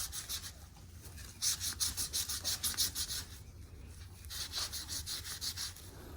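Cedar bark peelings rubbed back and forth on a shed deer antler to stain it a natural colour. Quick, hissy strokes come in runs of a second or two, with short pauses between.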